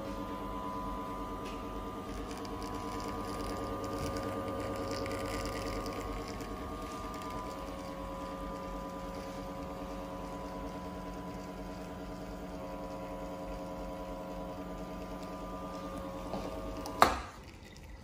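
Victoria Arduino Eagle One Prima espresso machine pulling a shot: the pump hums steadily while espresso runs into the cup. About a second before the end there is a single loud sharp click and the hum cuts off as the shot stops.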